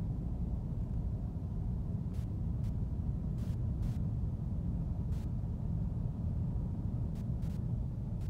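Steady low rumble of a car heard from inside its cabin, with a few faint short high ticks scattered through it.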